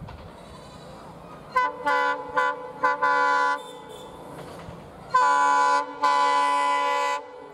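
Air horn of an approaching WDG4 (EMD GT46MAC) diesel locomotive: a quick series of short toots about a second and a half in, then two long blasts near the end, over a faint rumble of the train.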